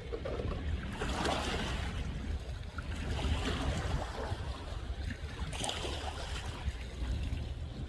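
Sea waves washing in and drawing back, a swell every two or three seconds, over a steady low rumble of wind on the microphone.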